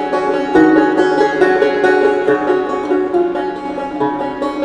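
Background music: an acoustic track led by a plucked string instrument playing quick notes.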